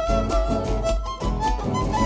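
Live Argentine chaqueño folk band playing an instrumental passage: a violin carries a stepping melody over guitar and a steady drum beat.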